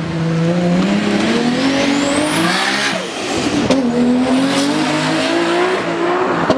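Nissan Skyline R34 GT-R's twin-turbo straight-six revving hard under acceleration, its pitch climbing, dropping about three seconds in, then climbing again. Tyres squeal as the car slides through the corner.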